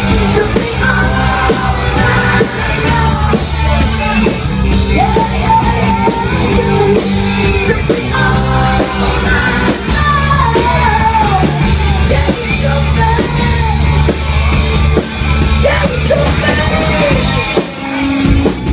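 Live cover band playing loud, with a steady bass line under singing and yells.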